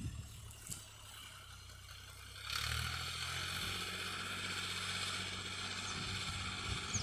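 Tractor engine running steadily under load while tilling the field, heard from a distance. It is faint at first and comes in clearly about two and a half seconds in.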